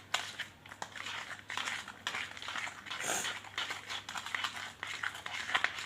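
Sticky homemade glue slime being stirred and worked, a steady run of wet, crackling clicks with a brief hiss about three seconds in.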